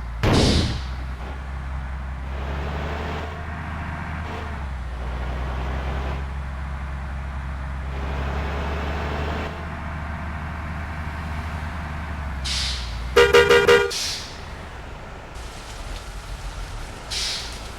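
Bus diesel engine running with a steady low hum, with short hisses of air near the start and again later. About 13 seconds in, a horn sounds in a quick run of pulsed blasts, the loudest thing heard, and the engine hum drops away just after.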